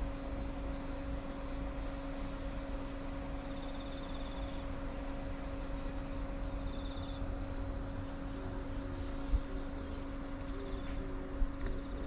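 Summer insect chorus: a steady high-pitched buzz, with short rapid pulsed chirps a few times. Under it run a low rumble and a faint steady hum, with a small thump about nine seconds in.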